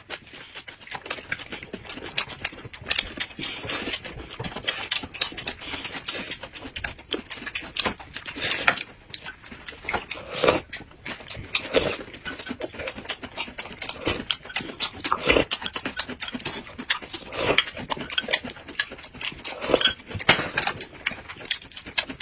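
Close-miked eating sounds from two people chewing rolled pancake wraps: many short wet lip smacks and mouth clicks, with an occasional slurp from a spoon of soup.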